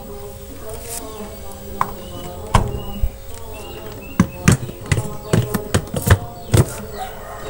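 Hard plastic clicks and knocks, about eight spread over the last two thirds, as the lid and motor head of an electric mini chopper are fitted onto its bowl.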